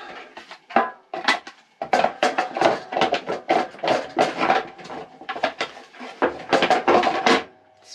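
Belt guard being fitted back onto a Honda HS828 snowblower by hand: a busy clatter of knocks and rattles as the guard is pushed and worked into place against the machine's housing.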